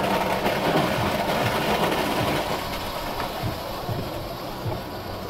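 Steady machine hum with a low rumble and scattered soft thumps, denser in the first half and easing slightly toward the end.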